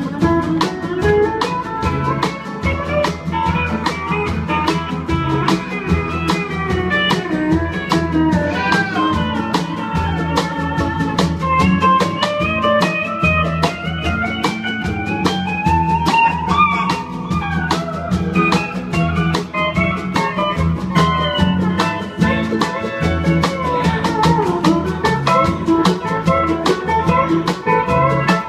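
Country band playing an instrumental break, with a lead guitar solo over bass and a steady drum beat.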